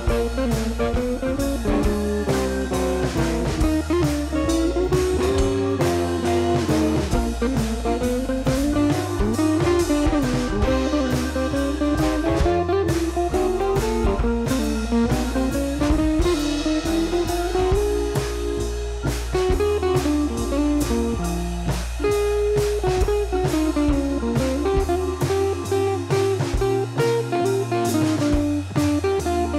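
Instrumental background music: a blues-style guitar melody over a steady drum beat.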